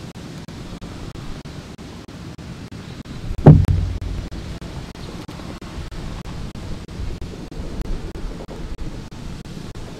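Steady outdoor rushing noise, with one loud low thump about three and a half seconds in that dies away over about a second.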